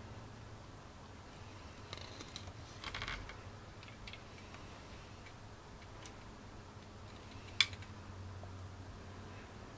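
Faint handling noises: a few small clicks and a short rustle, then one sharp click about seven and a half seconds in, over a low steady hum.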